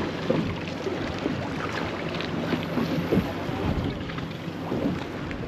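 Wind buffeting the microphone and choppy water slapping against a small boat's hull, with a steady low hum underneath.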